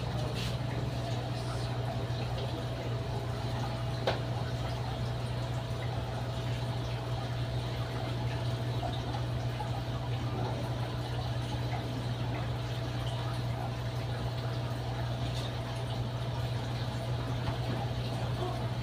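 Goldfish tank's pump and aeration running steadily: a constant low hum with water bubbling and trickling. A single short tick about four seconds in.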